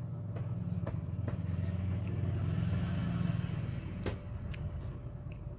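A motor vehicle passing by, its low rumble swelling for about three seconds and then fading. A few sharp clicks sound over it.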